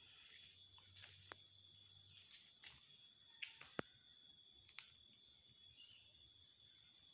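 Near silence: faint room tone with a steady high-pitched tone, broken by a few soft clicks and taps, the sharpest about four and five seconds in.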